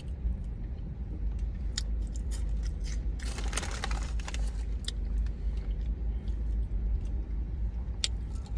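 Plastic snack bag crinkling as a hand reaches in for more hot fries, with crunchy chewing of the puffed snack, over a steady low hum.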